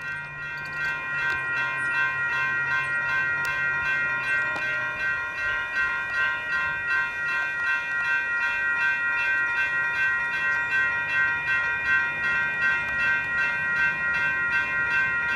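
Electronic railroad crossing bells ringing rapidly and continuously, several bells overlapping into a steady ringing. Underneath is the low hum of a UTDC light rail train passing through the crossing.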